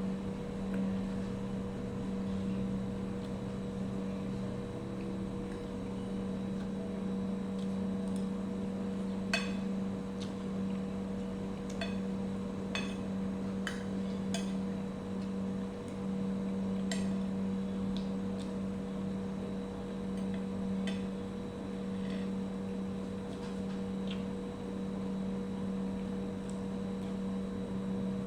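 A steady machine hum with scattered light clinks of utensils against dishes, about a dozen, mostly in the middle of the stretch.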